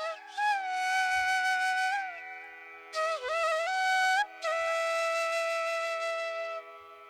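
Background music: a flute playing long held notes with slides between them over a steady drone.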